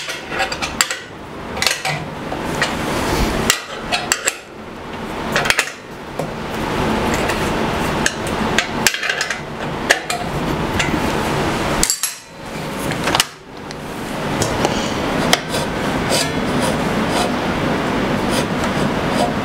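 Irregular sharp metal knocks and taps as the Incra fence rails are worked and adjusted on a Ridgid R4512 table saw, a dozen or so strikes spread unevenly over a steady background noise.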